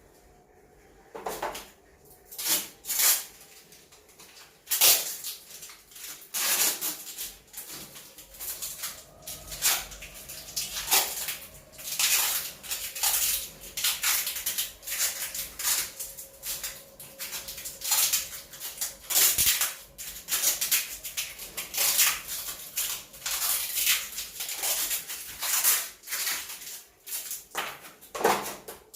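Irregular clicks, knocks and rattles of hands-on work installing a washing machine. A faint steady tone runs through the middle stretch.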